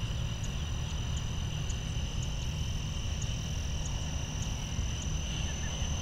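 Steady chorus of crickets trilling high and continuous, with a faint tick about twice a second, over a low rumble.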